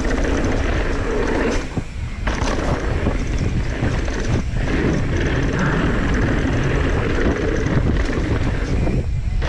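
Mountain bike descending a dirt trail at speed: steady wind rush on the microphone mixed with tyres rolling over dirt and the bike rattling over stutter bumps. The noise thins briefly about two seconds in and again near the end.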